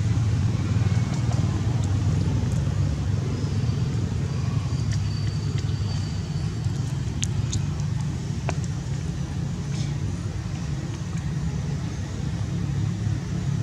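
Steady low rumble, with a few faint short clicks over it.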